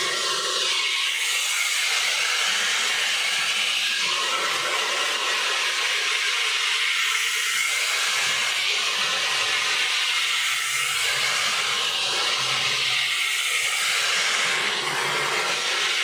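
Handheld hair dryer with a concentrator nozzle blowing steadily, a loud rush of air that swells and eases a little as it is moved over the hair during a brush blow-dry.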